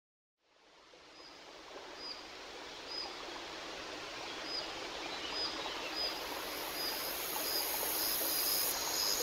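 A nature ambience fades in: a steady rushing noise like running water, growing louder, with a short high chirp repeating about once a second.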